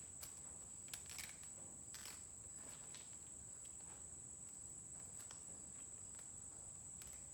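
A faint, steady, high-pitched insect trill, typical of crickets, with a few faint clicks and ticks from steel cable strands being handled and wrapped.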